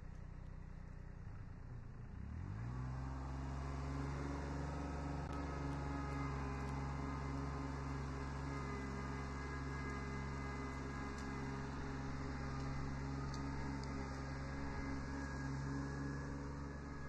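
Kubota B7100 HST compact tractor's three-cylinder diesel engine speeding up about two seconds in, then running steadily at higher revs as the tractor pulls away.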